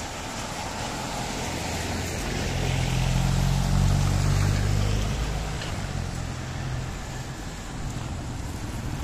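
Street traffic with a steady hiss; a motor vehicle passes close by, its engine hum swelling about three seconds in and fading away about three seconds later.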